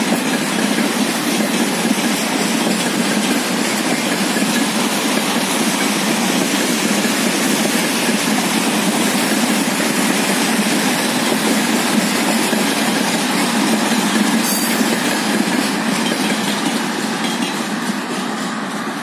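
Freight train tank wagons rolling past: a steady rumble and clatter of wheels on rails, growing a little fainter near the end.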